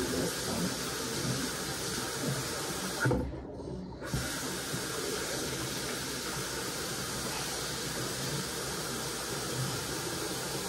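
Water running steadily from a bathroom tap into a sink, with a brief break about three seconds in.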